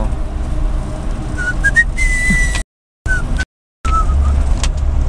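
Off-road 4x4 engine running with a heavy low rumble while climbing a loose dirt slope. About a second and a half in come a few short whistle-like notes stepping up in pitch, then one held whistle-like note. The sound cuts out completely twice, briefly.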